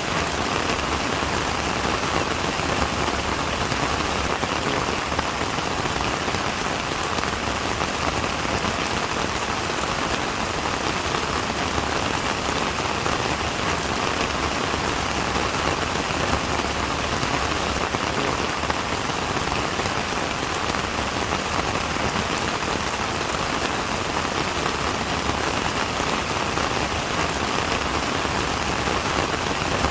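Steady rain falling on a surface, an even, unbroken patter of raindrops.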